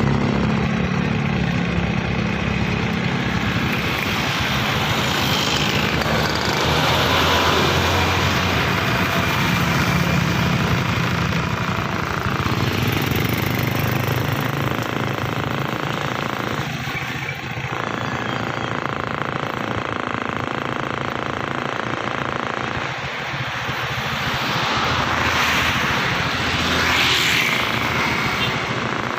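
Heavy bus running at speed on a highway: a steady low engine drone with road and wind noise that swells and eases.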